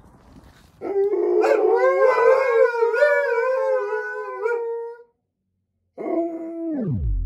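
Two Alaskan malamutes howling together, the pitch wavering and their voices overlapping, starting about a second in after a moment of faint chewing. After a short break, a last howl slides steeply down in pitch near the end.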